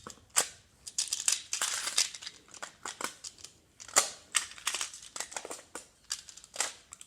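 Plastic magnetic building tiles clicking and clattering as they are handled, rummaged through and snapped together, in irregular bursts of sharp clacks.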